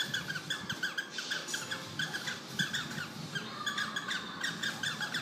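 Cockatiel making a steady run of short, rapidly repeated squawky notes, several a second without a break.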